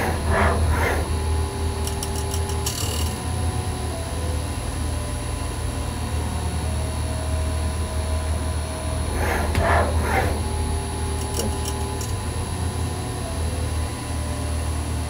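NEVA NBS 200 CNC band saw profile grinder running with water coolant, a steady low hum throughout. Twice, near the start and around ten seconds in, a short whine rises and falls as the servo-driven grinding head moves. Quick light ticks come around two to three seconds in and again near twelve seconds.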